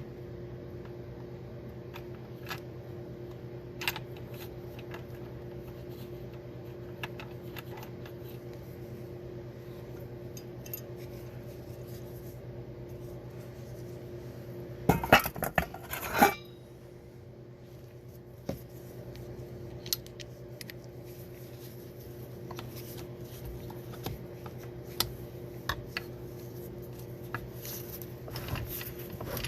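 Metal gear-selector parts from a manual transmission clinking and clicking as they are handled and fitted together, with a louder burst of clattering about halfway through, over a steady low hum.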